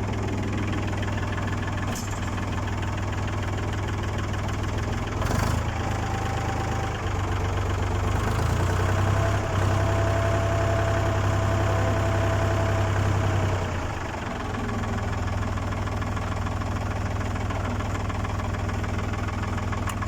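Ford 4000 tractor engine idling steadily, running a little louder for several seconds in the middle. A sharp knock about two seconds in and another about five seconds in.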